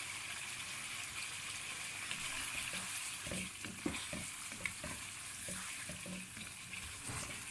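Chicken karahi sizzling in oil in a pan. From about three seconds in, a spoon stirs it, scraping and knocking against the pan.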